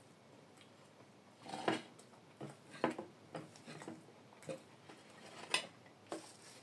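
A metal fork clinking and scraping against a ceramic plate as it cuts through a pancake. From about a second and a half in there is a string of short, sharp clicks and scrapes, about ten in all, three of them louder.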